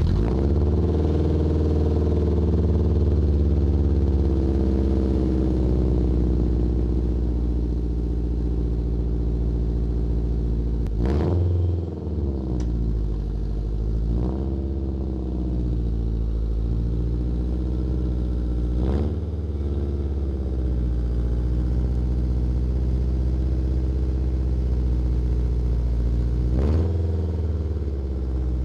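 Acura Integra's four-cylinder engine running steadily, with its pitch briefly shifting three or four times. The exhaust is loud and raw through a torn flex pipe, a leak that makes it sound like an open header.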